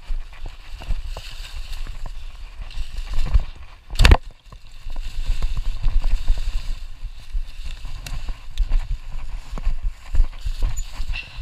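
Mountain bike riding over dry leaves and rough forest ground: a steady low rumble of the ride with tyres crackling through leaves and the bike rattling, and one hard knock about four seconds in.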